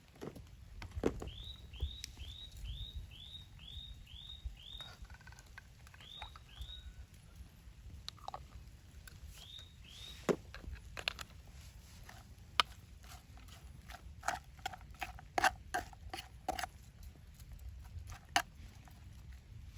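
A bird calling: a quick run of about eight short, high, downward-slurred notes, then two shorter runs of two notes. Scattered sharp clicks and knocks follow, thickest in the second half, over a low steady rumble.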